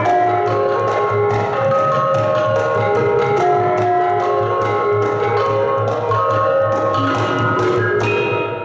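Gamelan ensemble playing: bronze kettle gongs and metallophone keys struck in quick runs of ringing notes. Near the end the playing stops and the notes ring out and fade.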